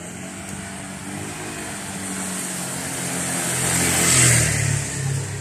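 A motor scooter approaching and passing close by on a wet road: engine hum with tyre hiss off the wet tarmac, growing louder to a peak about four seconds in, then easing off.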